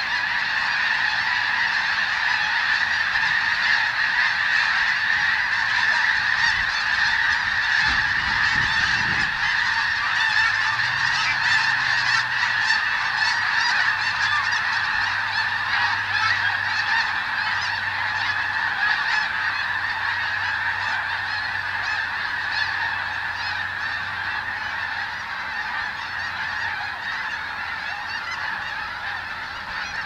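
A large flock of snow geese honking together, a dense, continuous din of many overlapping calls that eases a little over the last several seconds.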